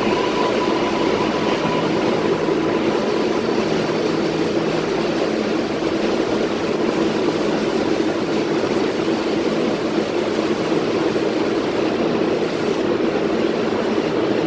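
R188 subway train pulling out and running off into the tunnel: a steady rumble of wheels on rail echoing in the station, with a thin whine that fades out about two seconds in.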